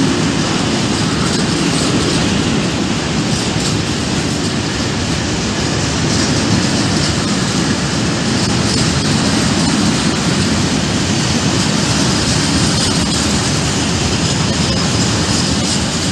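Freight train of covered hopper wagons rolling past, a steady, loud, continuous rumble of steel wheels on the rails.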